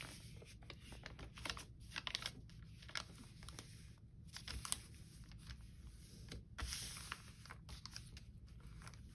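Paper being folded along a scored crease and handled: faint rustling and crinkling with scattered light clicks and taps.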